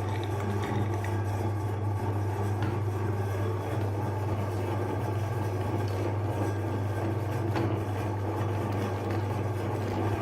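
Electric meat grinder running with a steady, even motor hum, with a few faint clicks.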